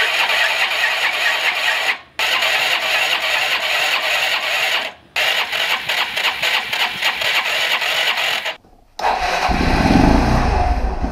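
Electric starter of a 1985 Honda Elite 150 scooter cranking its 150cc engine in three bursts of two to three seconds each, with short breaks between, the engine not catching on a first start attempt after restoration. Near the end, after a brief pause, a louder, deeper mechanical running sound with a fast even beat.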